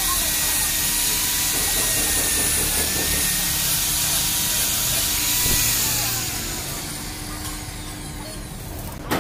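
Handheld electric angle grinder running with its disc against a metal rod, a steady high whine over grinding noise. About six seconds in it is switched off and the whine falls away as the disc spins down.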